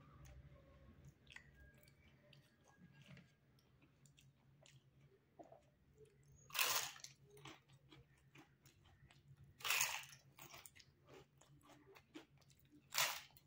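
Mouth chewing with soft wet clicks, broken by three loud crunches as bites are taken from a crisp roasted papad, about halfway, about three-quarters in, and near the end.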